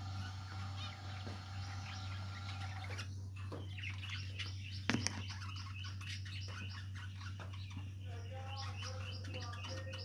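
Budgerigars chattering with rapid, high chirps, which grow busier about three seconds in. There is a steady low hum underneath and a single sharp knock about five seconds in.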